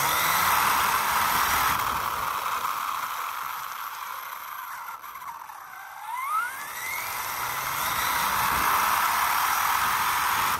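Electric RC car driving fast on asphalt: the motor and drivetrain whine rises in pitch as it speeds up, over a steady rush of tyre noise. The noise eases off around the middle, then a second rising whine comes about six seconds in as the car accelerates again.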